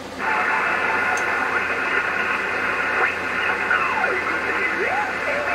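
Yaesu FT-101EE transceiver receiving on its external FV-101B VFO: band hiss comes up about a quarter-second in, and station signals slide up and down in pitch as the VFO dial is turned.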